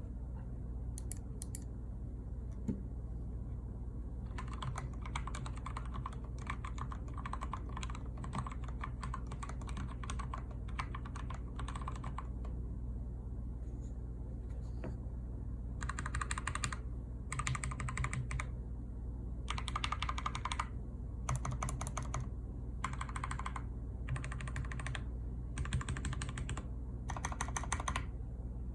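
Typing on a plateless Lumberjack mechanical keyboard with lubed Gateron Yellow linear switches. After a few stray keystrokes it settles into a steady run of typing, then into short fast bursts of keystrokes about a second long with brief pauses between them, over a low steady hum.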